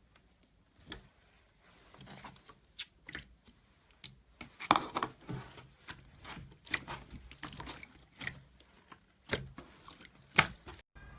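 Slime being squished and pressed by hand: irregular sticky clicks and pops, thickest about halfway through, with a sharp pop just before the sound cuts off suddenly near the end.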